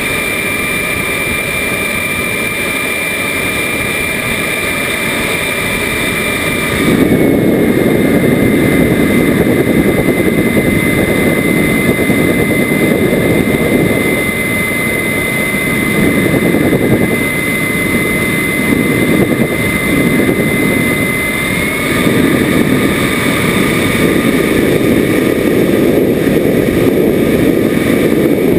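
Radio-controlled model Rafale jet in flight, heard from its onboard camera: a steady high whine from its power unit over loud wind rush on the microphone. About seven seconds in the whine drops slightly in pitch as the wind rush grows louder, and the whine rises again about three-quarters of the way through.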